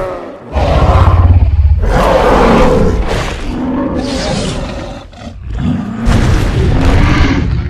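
Dinosaur roar sound effects: several long, deep roars and growls one after another, with brief breaks about half a second in and about five seconds in.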